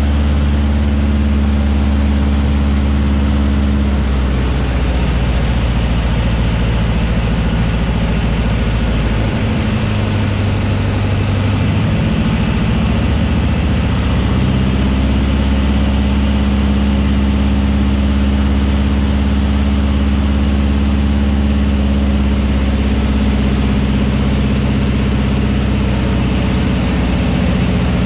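Van's RV-6 light aircraft's piston engine and propeller droning steadily, heard inside the cockpit. The engine note shifts a few times: about four seconds in, again between nine and twelve seconds, and around fourteen seconds.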